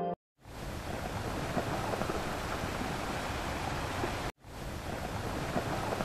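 A steady rushing noise without any pitch, heard at a moderate level. It cuts out abruptly for a moment at the very start and again a little over four seconds in, then resumes unchanged.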